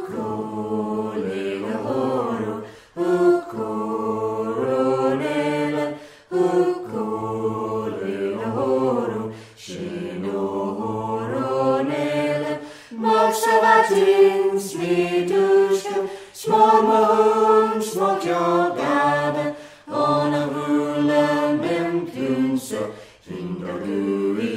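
Unaccompanied voices singing a slow melody in phrases of about three to four seconds, with short breaths between them.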